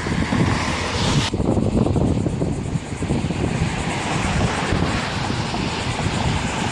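Train running past on the railway line, a loud steady rumble.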